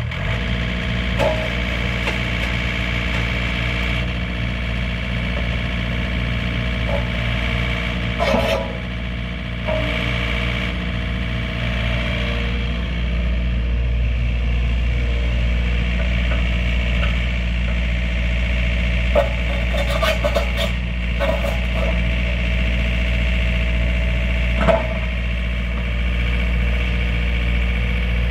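Takeuchi TB240 mini excavator's diesel engine running steadily while the boom, arm and bucket are worked and the machine swings. A few short knocks come from the moving machine about one, eight, twenty and twenty-five seconds in.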